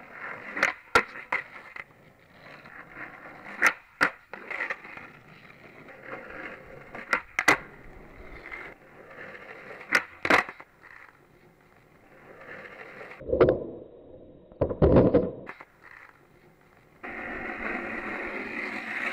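Skateboard wheels rolling over rough asphalt, broken by sharp wooden clacks of the deck and tail striking the pavement, mostly in quick pairs as tricks are popped and landed or the board flips away. Two louder, duller thuds come about two-thirds of the way through, and near the end the rolling grows louder and steadier as the board comes close.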